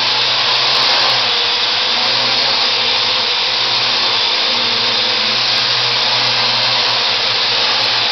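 Parrot AR.Drone quadcopter's four electric rotors whirring steadily as it hovers and tracks an object, a loud, even whir over a constant low hum.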